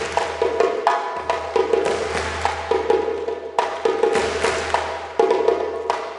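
Djembe hand-drum ensemble playing a rhythm together, with sharp hand strikes on the drumheads.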